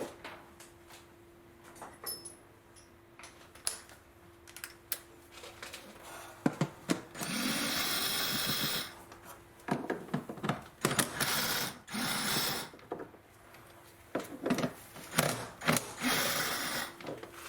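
An 8 mm socket tool spinning out the bolts around a car's pollen filter cover. There are four bursts of fast mechanical noise, each one to two seconds long, with scattered clicks and knocks of the tool and bolts between them.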